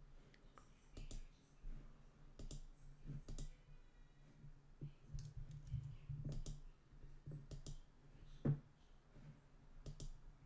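Computer mouse clicking at uneven intervals, about a dozen short single clicks with the loudest about eight and a half seconds in, over a faint low hum.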